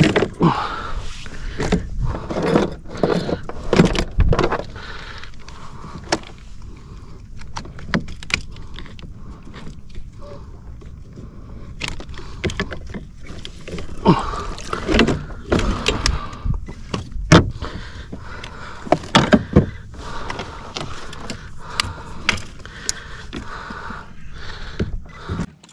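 Irregular knocks, clicks and rattles of fishing gear handled on a plastic fishing kayak: a fish lip-gripper, rod and lure knocking against the hull and deck while a landed barracuda is unhooked and laid down. The knocks come in clusters, thickest in the first few seconds and again about halfway through.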